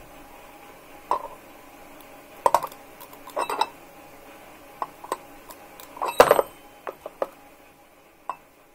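Steel spanner clinking against the tops of two copper-coil-wound iron rods of a home-made battery electromagnet: about a dozen irregular light metal taps, the loudest cluster about six seconds in.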